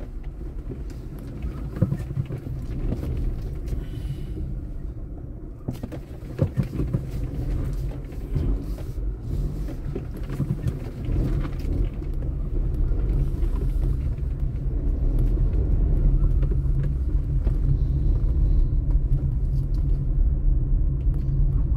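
Car heard from inside the cabin: a steady low rumble of engine and tyres, with scattered light knocks while the car turns around. The rumble grows louder through the second half as the car drives along a paving-stone street.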